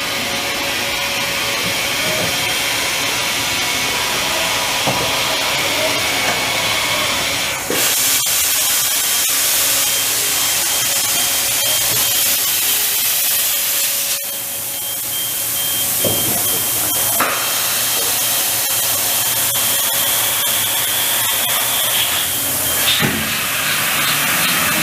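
Haas VF-3SS CNC vertical machining center running with a loud, steady hissing noise that turns brighter about eight seconds in and shifts again about fourteen seconds in. A thin high whine sounds from about ten seconds in until near the end.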